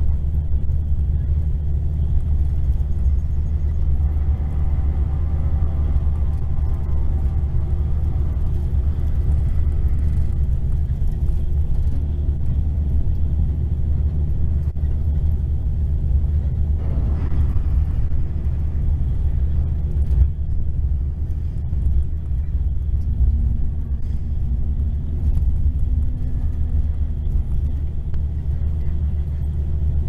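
Steady low rumble of a Mercedes-Benz diesel coach engine and road noise, heard inside the cabin of an Irizar New Century 3.90 coach cruising on a highway.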